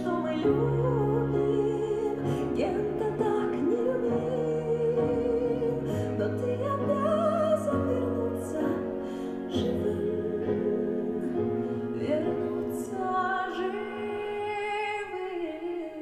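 A woman singing a slow ballad in an operatic style, holding long notes that waver with vibrato, over sustained low accompaniment.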